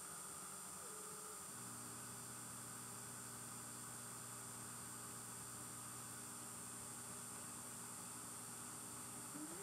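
Emco F1 CNC milling machine's motor running with a faint, steady electrical hum that comes in about a second and a half in. Near the end the hum stops and a brief rising whine follows as a motor speeds up.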